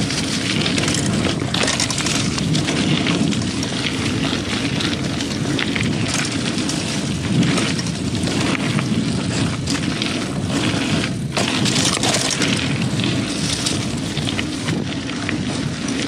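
Wind buffeting the microphone of a chest-mounted action camera on a moving mountain bike, mixed with tyre noise on the dirt trail and frequent knocks and rattles from the 2000 Klein Attitude Race bike going over roots and rocks.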